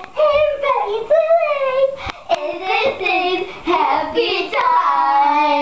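Young girls singing loudly together, holding a long note near the end, with a short sharp click about two seconds in.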